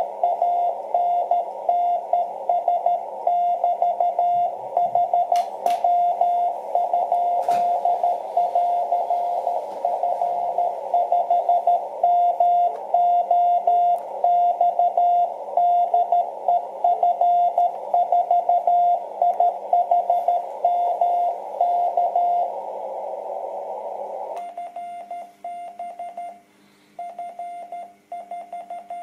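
Morse code (CW) on the 30 m amateur band at 10.105 MHz, heard through a shortwave transceiver's speaker: a single beep tone of about 700 Hz keyed in dots and dashes over a band of receiver hiss. Near the end the hiss drops out and the keyed tone goes on, cleaner and quieter.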